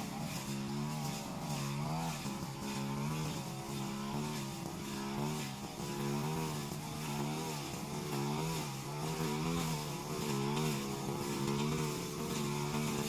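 Brush cutter's small engine running, its pitch wavering up and down continually as it is throttled and loaded while cutting through grass and undergrowth.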